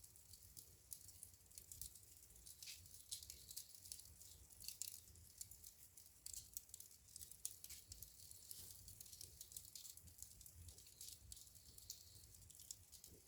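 Wood fire burning in a fireplace, crackling faintly: many small, irregular snaps and pops over a low rumble.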